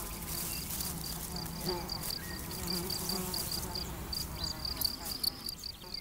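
European field cricket (Gryllus campestris) male chirping, made by rubbing its wings together: a high, even chirp repeating about three or four times a second, over a low hum. This is the male's calling song to attract a female.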